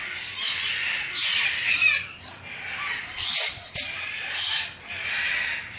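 Parrots squawking and chattering, a steady stream of harsh, overlapping calls with the loudest squawks about three seconds in.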